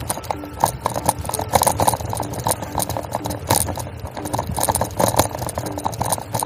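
Bicycle rattling and clattering as it rolls over a bumpy paved path: a constant run of uneven knocks from the frame and handlebar-mounted gear, over tyre noise.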